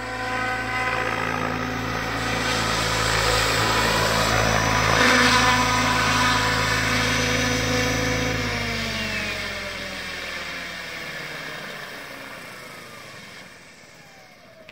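HD Helicopters HD 750 electric RC helicopter: the rotors and motor whine steadily as it comes in and lands. About eight and a half seconds in, the pitch starts to fall and the sound fades as the rotors spin down.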